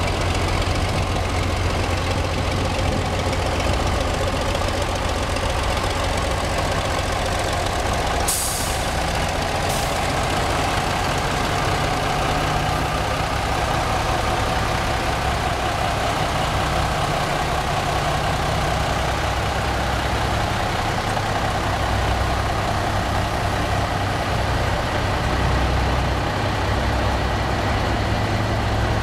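Engine of a 1969 Lima 700T truck crane running steadily with a low hum. About eight seconds in there is a short sharp hiss of released compressed air, and a shorter one about two seconds later.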